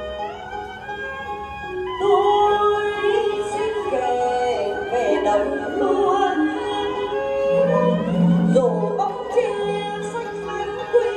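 Traditional Vietnamese music of a water puppet theatre ensemble: several melody lines with sliding, bending notes, louder from about two seconds in.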